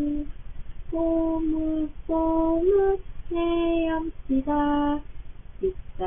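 A woman singing a slow lullaby-like song, held notes in short phrases with brief breaks between them, heard through a baby monitor camera's microphone.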